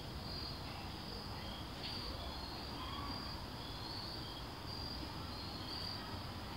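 Crickets chirping outdoors: short, high calls at two pitches repeat over and over, over a faint low background rumble.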